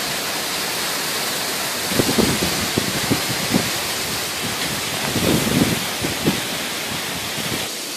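Heavy rain and wind of a severe thunderstorm: a steady rushing hiss, with short, dull gusts of noise between about two and six and a half seconds in.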